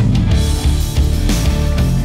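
Background music with a steady drum beat and a heavy, sustained bass line.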